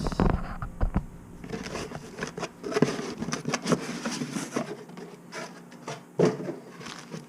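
Hands rummaging through a cardboard box of packed parts: irregular rustling, scraping and small knocks of packaging being moved, with one sharper knock about six seconds in.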